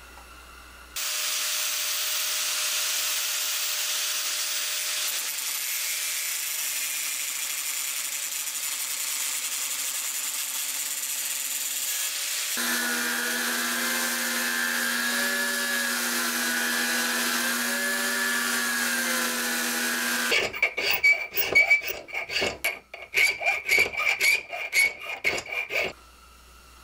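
Metalworking noise while shaping steel broadhead blanks. It starts as a steady harsh grinding hiss. About halfway through it changes to a belt grinder's motor humming steadily, its pitch wavering as steel is pressed to the belt. Near the end come about six seconds of rapid, irregular rasping strokes, like hand filing.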